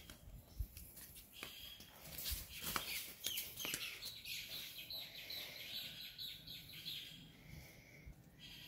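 Birds chirping and calling, busiest from about two to four seconds in.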